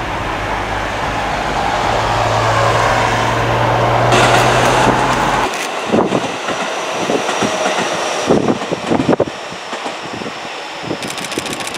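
Wind buffeting the microphone as a JR Central 313 series electric train approaches, then from about five and a half seconds in the train passing close by, its wheels clattering over the rail joints with a faint high whine.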